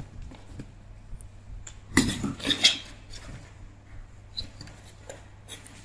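Kittens play-fighting on cardboard and a tiled floor: quick scratches, taps and scuffles of paws and claws, busiest about two to three seconds in.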